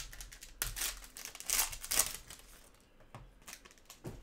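Foil trading-card pack wrapper crinkling as gloved hands tear it open, loudest in the first two seconds, then a few light clicks.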